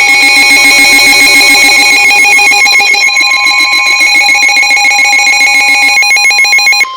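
Weather alert radio's built-in alarm sounding for a severe thunderstorm warning: a loud, rapid trilling alarm of several high tones. It cuts off suddenly near the end, leaving a single steady tone.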